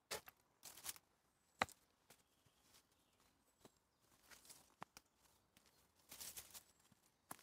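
Faint, irregular footsteps on a woodland dirt path: a few soft crunches of leaf litter and undergrowth underfoot, with one sharp click about one and a half seconds in.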